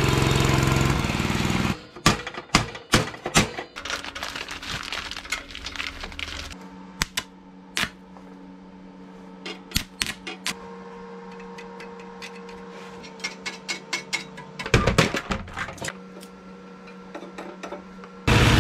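A small snowblower engine runs on a homemade tracked snowmobile for the first couple of seconds. Then comes the irregular crackling and popping of arc welding on a steel plate, with a steady low hum under it. The loud engine sound comes back briefly near the end.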